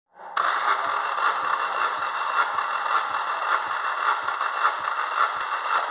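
Chevrolet Lacetti 1.6-litre 16-valve four-cylinder engine being cranked on its starter motor for a compression test: a steady whirring that starts abruptly just after the beginning, with a faint low pulse about every half second.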